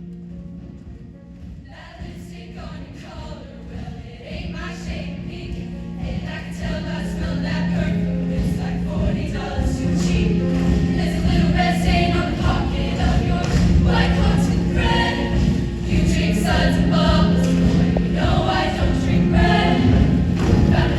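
Show choir singing in full ensemble over instrumental accompaniment. A held low note comes first, the voices come in about two seconds in, and the music builds in loudness over the next several seconds.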